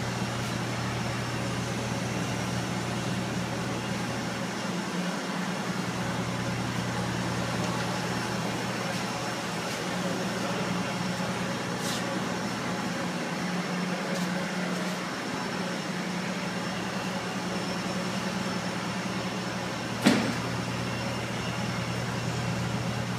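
A steady low mechanical hum with an even hiss over it, and a single sharp knock about twenty seconds in.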